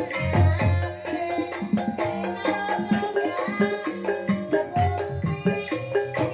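Banyumasan gamelan music in the ebeg style: interlocking struck pitched notes over low drum strokes, played continuously.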